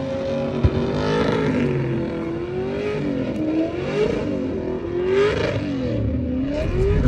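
Car engine revving up and down, its pitch rising and falling roughly once a second.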